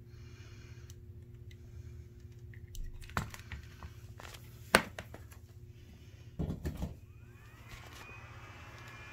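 Handling clicks and knocks, the sharpest a little past the middle, over a low steady hum; near the end a whine of several tones rises in pitch and settles into a steady high whine as the 6DQ6 vacuum-tube flyback driver rig powers up.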